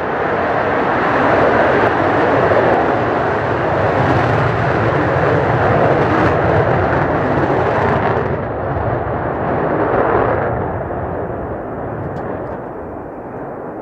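Jet aircraft engines passing close, a loud steady roar that loses its hiss and eases off after about eight seconds.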